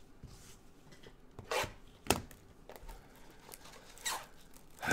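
Gloved hands tearing and crinkling the plastic wrapping on a trading-card box: a few short sharp crackles and rips, with faint rustling between them.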